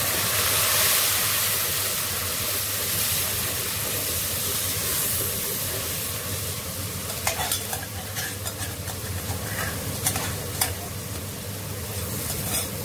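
Ginger-garlic paste sizzling in hot oil with fried onions, a steady hiss loudest in the first few seconds as the paste goes in. A metal spoon scrapes and stirs, with a series of sharp clicks and taps of metal on metal in the second half.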